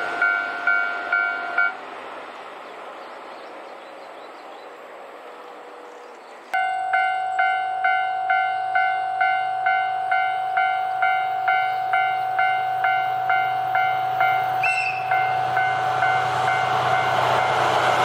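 Railroad crossing warning bell clanging at about two strokes a second, stopping abruptly near two seconds in; after a quieter stretch a second crossing bell starts up suddenly and keeps clanging. A short high horn toot sounds about three-quarters of the way through, then the low engine hum of a DF200 diesel locomotive builds as it approaches.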